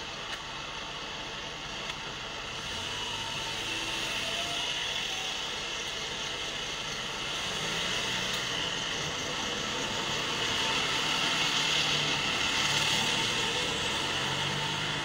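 Steady, hiss-like background noise with no single clear source, rising a little in level through the second half.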